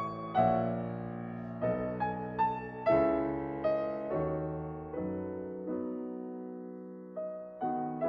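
Background music: slow, gentle piano, single notes and chords struck and left to fade, a new one every half second to a second.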